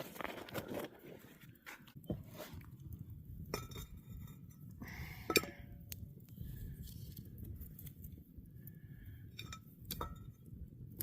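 Camp cookware clinking and knocking as bacon is put on to cook over a campfire: scattered light metal clinks, the loudest about five seconds in, over a low steady rumble.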